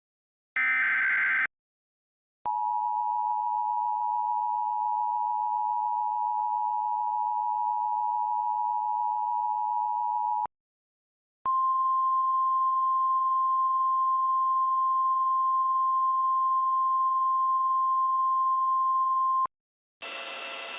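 Emergency Alert System broadcast tones. The last of the SAME header data bursts gives a short warbling screech. Then the two-tone attention signal (853 and 960 Hz together) sounds steadily for about eight seconds. After a one-second pause comes a single steady 1050 Hz alert tone for about eight seconds, and a faint hiss begins just before the end.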